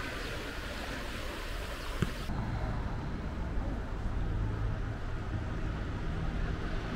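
Outdoor city street ambience. A steady hiss with one sharp knock about two seconds in, then the hiss cuts off abruptly and a low, steady rumble of traffic carries on.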